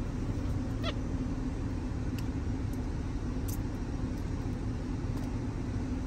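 Steady hum inside a parked car's cabin with the car running, with a few faint clicks about one, two and three and a half seconds in.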